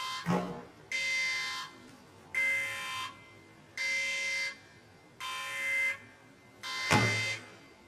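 Electronic alarm buzzer beeping in a steady pulse, one long beep about every one and a half seconds. Two short sharp thumps cut in, one just after the start and one near the end.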